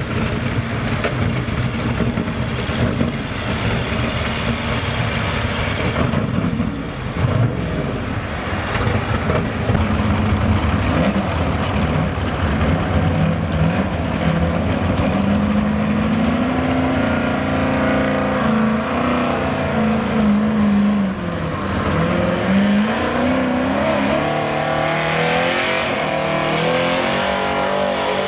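Gas-engined 4x4 pulling trucks running hard under load while dragging a weight-transfer sled, two trucks in turn with an abrupt change about a quarter of the way in. Over the later run the engine pitch swings up and down, dips sharply, then climbs again as the truck digs down the track.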